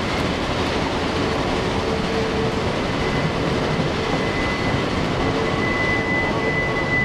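Open-sided railroad passenger cars rolling past close by, a steady rumble of steel wheels on rail. A thin high wheel squeal sets in about three seconds in and grows louder toward the end.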